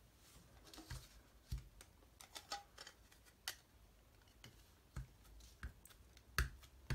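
Irregular light taps and knocks of a wood-mounted rubber stamp being handled on a table and inked by dabbing a small ink pad against its rubber face, the loudest taps near the end.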